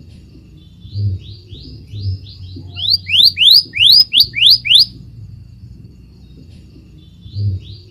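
Scarlet minivet calling: a run of short, rising whistled notes, about three a second, growing louder through the phrase. After a pause of a couple of seconds, the next run begins near the end.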